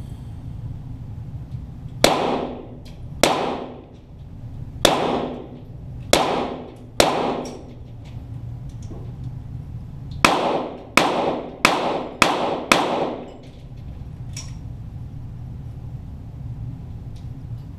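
.22 Walther GSP target pistol shots, heard from beside the target: two strings of five shots, each ringing out with a long echo. A steady low hum runs underneath.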